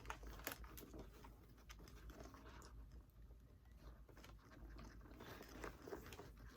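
Faint, irregular clicks and rustles of hands threading a shoelace through the eyelets of an Air Jordan 1 sneaker, working the lace through a tight hole.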